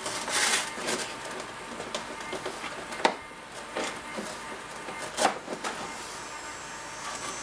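A few sharp clicks and knocks of hands working on a model jet's fuel line and airframe, the loudest about three seconds in, over a faint steady hum.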